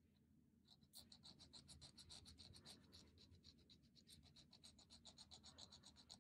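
A hand nail file rasping around the edge of a fingernail in quick, short, even strokes, several a second. It starts a moment in and is faint.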